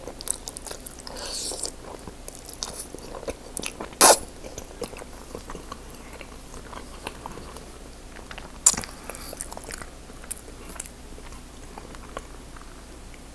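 Close-miked chewing and mouth sounds of a man eating pasta and shrimp, with a few sharp clicks: the loudest about four seconds in, another near nine seconds.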